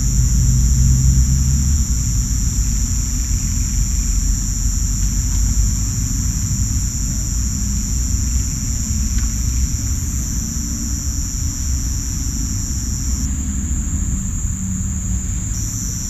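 Crickets and cicadas chirring in steady, continuous high-pitched tones over a steady low rumble. One of the high tones drops out near the end and comes back just before the close.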